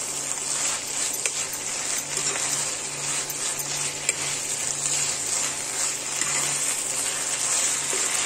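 Greens and chopped vegetables sizzling in a non-stick kadai while being stirred, with a steel spatula clicking and scraping against the pan.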